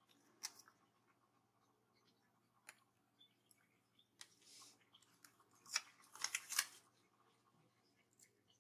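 Faint handling of paper planner stickers: scattered small clicks and rustles, with a louder burst of crisp crinkling about six seconds in.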